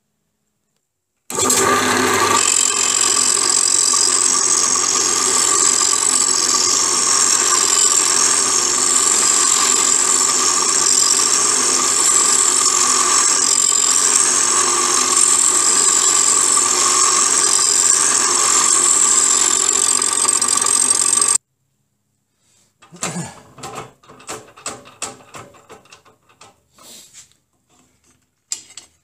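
Pillar drill running at steady speed, its cutter machining the dog faces of a steel motorcycle gearbox gear to back-cut them; a loud, steady sound with fixed high tones. It stops abruptly about 21 seconds in, followed by a few light clicks and knocks of metal being handled.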